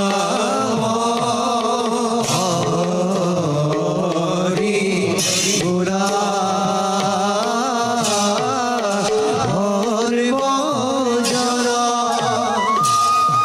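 Assamese Bhaona accompaniment: voices singing a wavering melody over regular beats on a barrel drum, with bright clashes of cymbals every few seconds.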